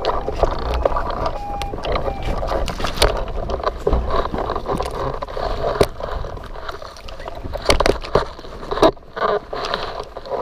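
Gusty wind buffeting the microphone, with many short, sharp flaps and knocks through it.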